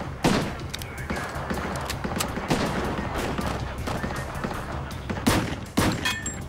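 Gunfire: about five sharp shots at irregular intervals, the loudest just after the start and about five seconds in, over a low steady music bed.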